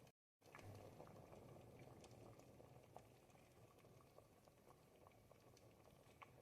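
Faint, thick ribollita soup simmering in a pot, with a steady bubbling and many small irregular pops as bubbles burst through the dense soup. The sound cuts out completely for a moment just after the start.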